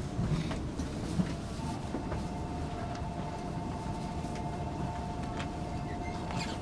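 Station platform ambience beside a stopped E5 series Shinkansen: a steady low rumble with scattered footsteps and small clicks. About a second and a half in, a steady two-note hum sets in and holds.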